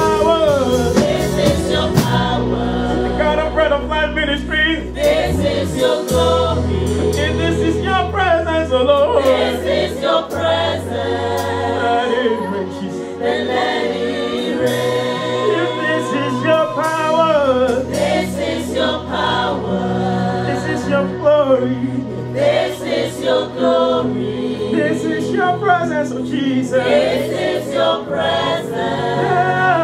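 Gospel worship team of several voices singing a slow praise song into microphones, over sustained low chords that change every few seconds.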